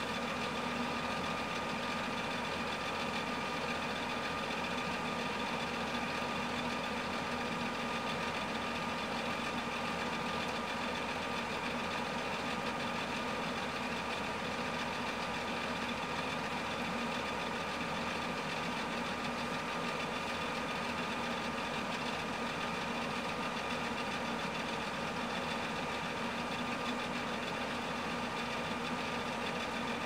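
Steady running drone of a farm vehicle's engine, heard from inside its cab, with several even whining tones over it and no change in speed.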